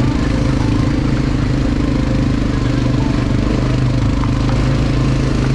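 ATV quad bike engine running at a steady, even pitch with no clear revving.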